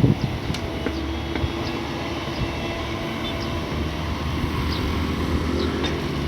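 Heavy diesel engine of an excavator running steadily, with a few sharp knocks right at the start.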